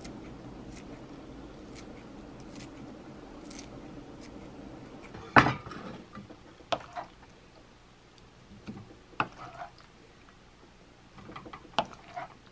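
Wooden spoon knocking and scraping against a wok and a metal enamel bowl while steaming pasta is stirred and served: one sharp knock about five seconds in, then several lighter knocks, a few with a short ring. Before that, a low steady background with faint ticks.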